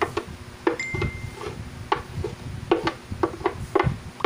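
Wooden spatula knocking and scraping against a glass blender jar while thick squash purée is scraped out, about a dozen irregular clacks.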